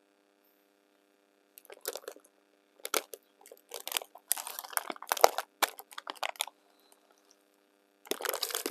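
Hands working loose compost and soil around a transplanted pea seedling: gritty, crunchy scraping and rustling in a run of strokes from about a second and a half in, then another burst near the end.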